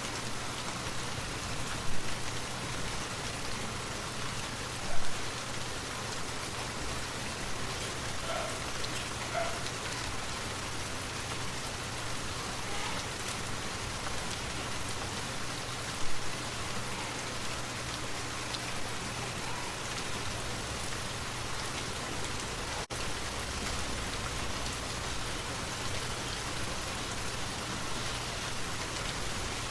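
Steady, even rush of a forest waterfall, broken by three brief louder sounds about two, five and sixteen seconds in.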